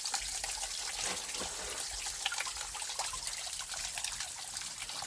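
Water of a partly frozen mountain stream trickling and splashing steadily, with many small irregular drips and plinks.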